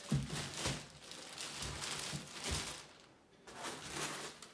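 Packaging being handled while parts are taken out of a box: rustling and crinkling, with a few dull knocks in the first couple of seconds and a short pause about three seconds in.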